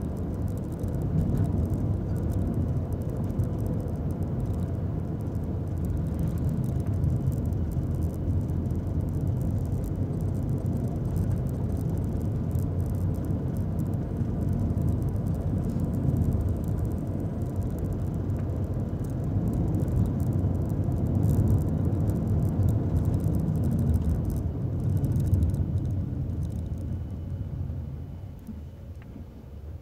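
Nissan Magnite's 1.0-litre turbo three-cylinder and CVT heard from inside the cabin while driving, a steady low rumble of engine and tyres on the road. It grows quieter near the end as the car eases off.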